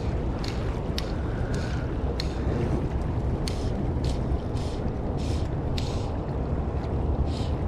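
Wind buffeting the microphone over river water rushing past a drifting boat, a steady low rumble, with short high swishes coming irregularly about once or twice a second.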